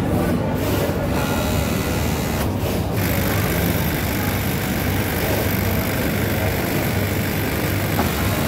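Steady machine din of a garment factory floor: industrial sewing machines running, with a low hum underneath.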